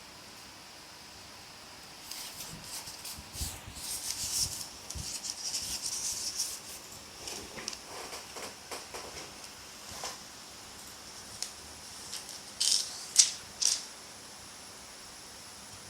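Hard phone case being handled and fitted: irregular rubbing, rattling and clicks of its plastic and metal-plated parts, ending in three sharp clicks about 13 seconds in, over a faint steady hiss.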